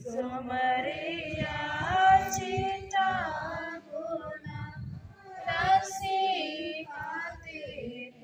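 A congregation singing a hymn together, women's and children's voices to the fore, in phrases with short breaks between them.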